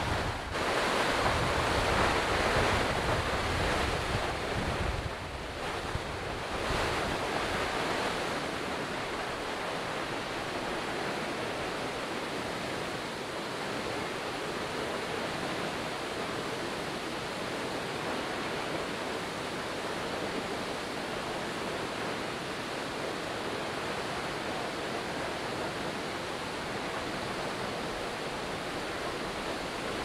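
Otodome Falls, a steady rush of water pouring down the waterfall, somewhat louder in the first several seconds.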